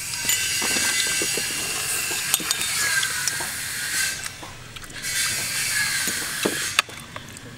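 A loud, high buzzing sound comes in two long stretches, the first about four seconds long and the second shorter, with a dip between them. Under it are light clicks, clinks and scrapes of hands and a metal spoon working a cooked crab's shell.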